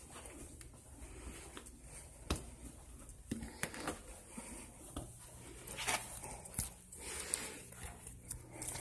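Footsteps on a carpeted floor and rustling handling noise from a handheld camera, heard as irregular soft knocks and rustles over a steady low hum.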